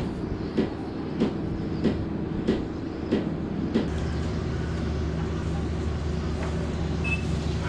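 A motor engine running steadily, with regular knocks about every two-thirds of a second that stop about four seconds in, leaving a lower, even drone.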